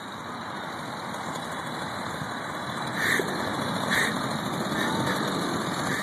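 Small engine of a motorized chopper bicycle running and growing steadily louder as the bike comes closer, with two short bright blips about a second apart midway.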